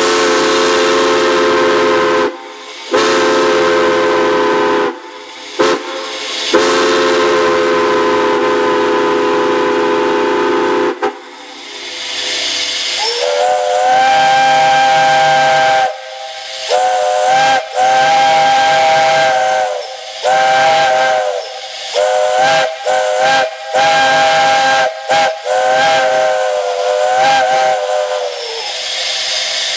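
Steam locomotive chime whistles blowing. A lower chord is held in long blasts broken by a few short gaps for the first eleven seconds or so. After a moment of hissing steam, a higher-pitched chord sounds in one long blast and then a rapid run of short toots that bend up in pitch as each one starts.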